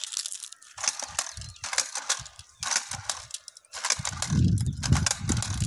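Hand-held jab planter stabbed into dry, stony soil to sow maize seed one grain at a time: repeated crunching and scraping of soil and grit with sharp clicks. A low rumble joins in about four seconds in.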